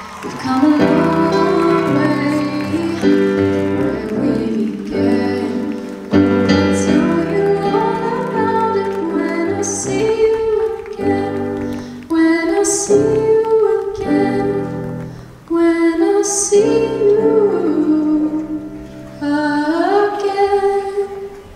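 A song with a singing voice over instrumental backing, dying away at the very end.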